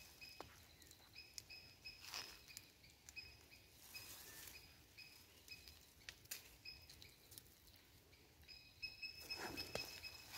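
Faint background chirping: short high calls repeated a few times a second in runs, with a few soft rustles in between.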